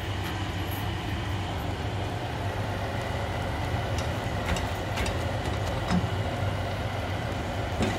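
Wooden spoon stirring and scraping a shredded chicken and chana dal mixture as it fries dry in a pot over a gas flame, with a few light knocks of the spoon on the pot. A steady low hum runs underneath.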